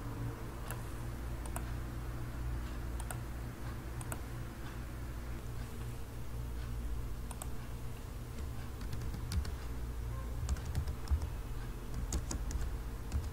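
Computer keyboard and mouse clicks: scattered single clicks, then a quicker run of keystrokes near the end as a file name is typed, over a steady low hum.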